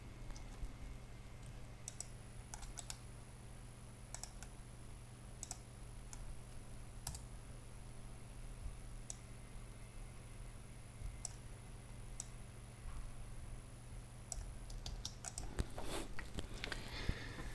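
Computer mouse and keyboard clicks, single clicks a second or two apart with a quicker cluster near the end, over a steady low hum and a faint high whine.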